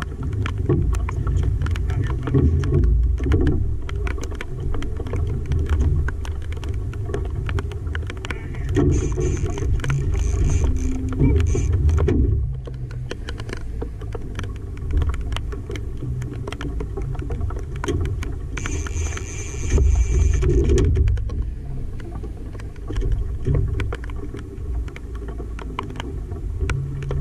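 Heavy rain pattering on an aluminium fishing boat and rain gear, with gusty low rumble on the microphone and many small drop taps. Two short high thin tones sound partway through.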